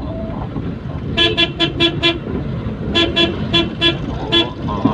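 A vehicle horn tooting in rapid runs of short blasts, about five a second. There is one run about a second in, another about three seconds in, and a single toot near the end, over steady engine and road noise. The horn is being used to clear a path through traffic in place of a broken siren.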